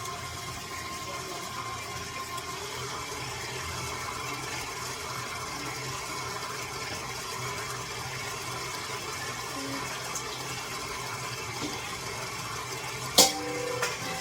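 Electric mixer running steadily, beating the cookie dough until it is creamy. A single sharp knock about a second before the end.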